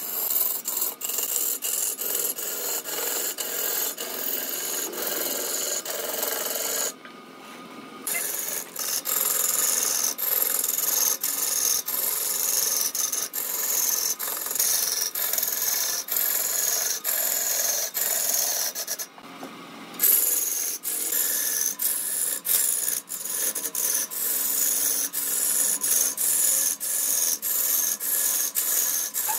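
Long-handled turning tool cutting into a large log spinning on a wood lathe: a steady, rough scraping that pulses in an even rhythm. It breaks off twice for about a second.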